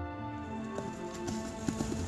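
Hoofbeats of a cantering pony, irregular clops from about a second in, heard under steady background music.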